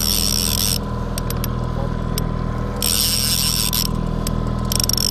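Fishing reel whirring in bursts of a second or two as line is wound in during a fight with a king salmon, with a few clicks in the pauses between. The boat's motor hums steadily underneath.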